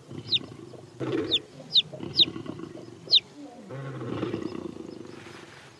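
Lions growling low and gruffly while mating, the male mounted on the lioness. Five short, high-pitched, falling calls cut in over the growling and are the loudest sounds.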